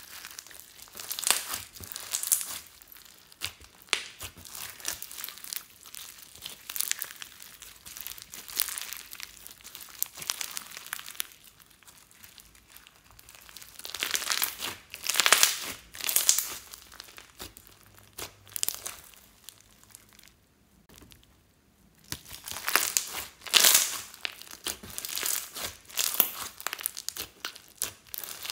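Hands squeezing, pressing and stretching a large lump of glossy slime packed with foam beads, glitter and clay bits: irregular bursts of sticky crackling and popping, with a short pause about twenty seconds in.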